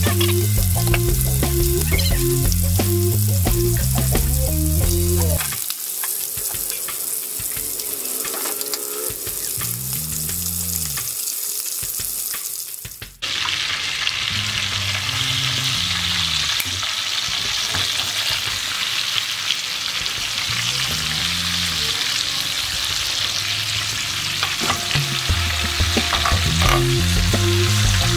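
Chicken leg quarters sizzling steadily as they fry in oil in a pan. About thirteen seconds in, the sizzle turns suddenly louder and brighter. A background music track with a low beat plays at the start and again near the end.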